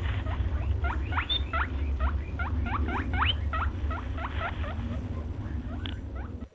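Spice powders and onions frying in hot oil in a kadai, giving quick squeaky chirps several times a second over a low steady hum.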